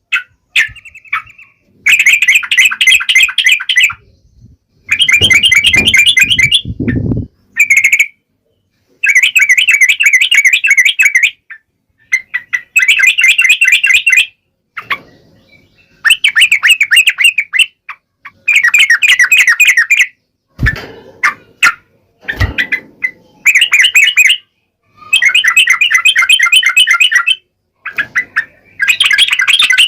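Yellow-vented bulbul singing its fast, chattering song in repeated phrases about two seconds long, with short gaps between them. Two brief low knocks come about two-thirds of the way through.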